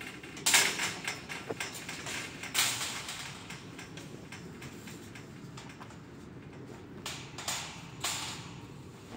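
Metal frame pipes and mesh knocking and scraping against one another as they are pushed into place by hand. There are several sharp metallic scrapes, the loudest about half a second in and again near two and a half seconds, with more near the end.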